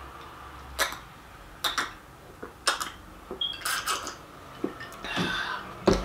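A person gulping juice from a glass: wet swallowing clicks about once a second, then a breath out and a soft knock near the end.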